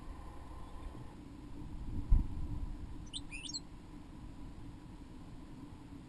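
A dull thump about two seconds in, then a small bird giving a quick pair of high chirps about a second later.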